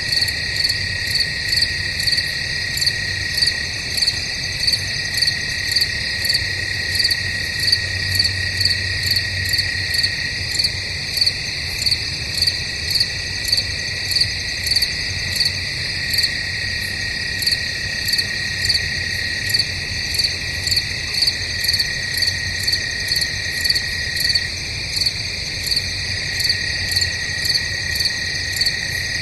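Crickets chirping in a night-time woodland chorus: a continuous high trill under regular, louder pulsed chirps about one and a half times a second.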